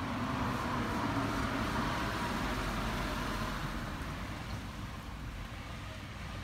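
Road traffic noise: a passing vehicle's rumble swells over the first couple of seconds and slowly fades.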